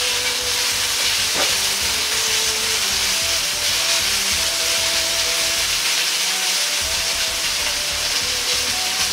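Diced chicken breast sizzling in oil in a hot wok over medium heat as it is stir-fried, a steady frying hiss.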